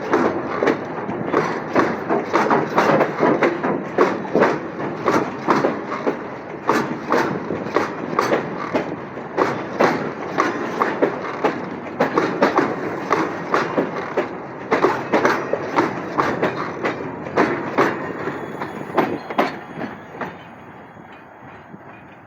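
Loaded freight wagons rolling past on the rails, with wheels clicking over the rail joints in quick irregular clusters over a steady rumble. The sound drops away about 20 seconds in as the end of the train goes by.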